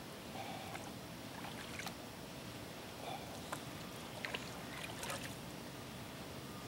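Faint paddle strokes from a canoe, with a few light knocks of the paddle against the hull, over a steady background hiss.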